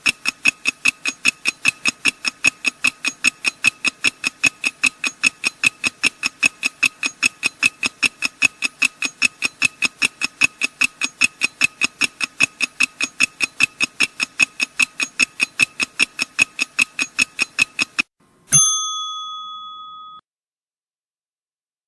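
Countdown-timer sound effect: fast, even, high-pitched ticking for about eighteen seconds, then a single bell ding that rings out and fades, marking that the answer time is up.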